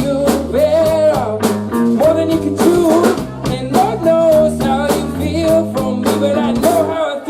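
Live rock band playing, with drum kit, bass and guitar and a pitched melody line gliding over a steady beat.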